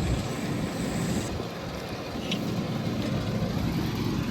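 Steady low rumble with no distinct events, and a faint short tick about two seconds in.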